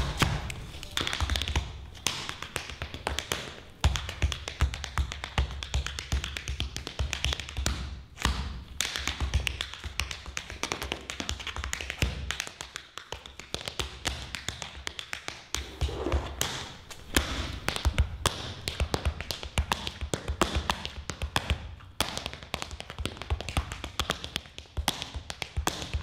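Tap shoes striking a stage floor in fast rhythm-tap footwork: a dense run of sharp taps, broken by a couple of short pauses.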